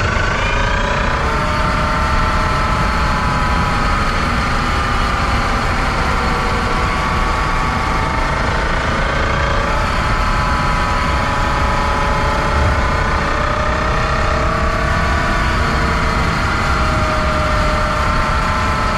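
Kia e-Niro electric drive unit (motor and reduction gearbox) whining while driving: several steady tones that rise in pitch in the first second and then hold, over low road rumble. This is the running noise of a drive unit with a motor defect and a worn-out transmission.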